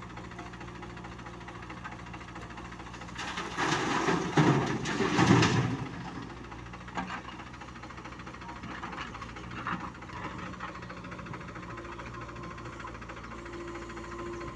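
Diesel engines of a JCB 3DX backhoe loader and a Powertrac Euro tractor running steadily while the backhoe digs soil. About three seconds in, a loud, rough burst of scraping and clatter lasts for about three seconds.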